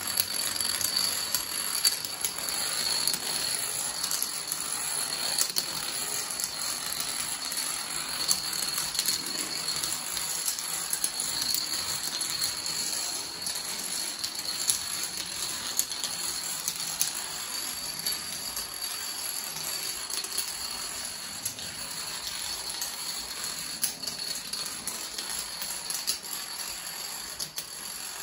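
Thousands of plastic toy dominoes toppling one after another in a chain reaction: a dense, continuous clatter of rapid small clicks.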